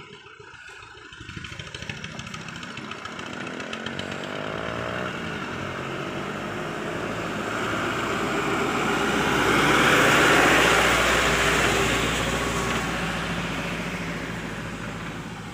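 Diesel dump truck driving past close by, its engine growing louder, loudest about ten seconds in, then fading as it pulls away.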